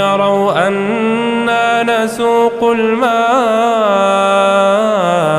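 A man's voice reciting the Quran in melodic tajweed style, drawing out one long vowel with ornamental turns of pitch and a long held note that breaks off near the end.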